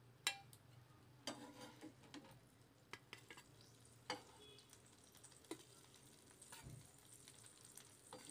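Metal spatula clinking against a frying pan and a steel plate as fried fish slices are lifted out, a handful of sharp, scattered taps over a faint sizzle of oil.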